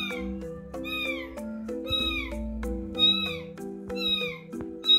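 A very young kitten meowing over and over in short, high, falling cries, about two a second. These are the calls of an orphaned kitten crying for its missing mother. Background music with sustained notes plays beneath.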